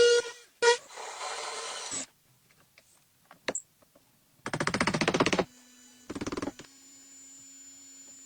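A short electronic tone and a few clicks, then a small motor whirring for about a second, with a second, shorter whir soon after.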